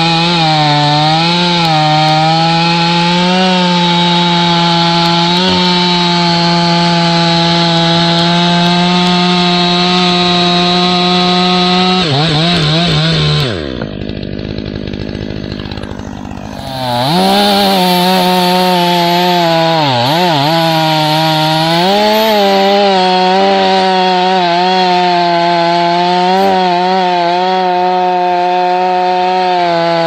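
Stihl 500i chainsaw, a fuel-injected two-stroke, running at full throttle while bucking a white oak log, its pitch sagging now and then as the chain bogs in the wood. About halfway through, the engine drops to idle for roughly three seconds, then revs back up and cuts again.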